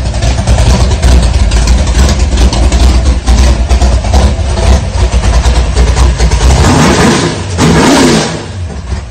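Ford 427 small-block V8 running loud and rough-edged, revved up and back down about seven seconds in.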